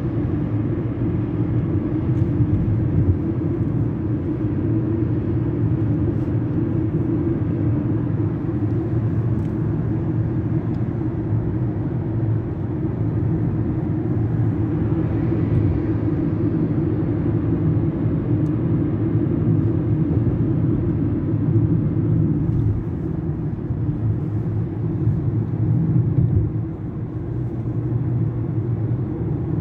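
Steady road noise inside a moving car's cabin: a low drone of tyres and engine that stays even, with a brief brighter hiss about halfway through.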